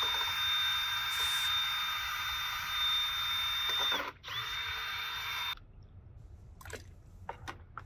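Cordless drill spinning a paddle mixer in a bucket of paver sealer, blending in tan colorant. The motor whines steadily, drops out briefly about four seconds in, runs again, then stops abruptly at about five and a half seconds. A few faint clicks follow.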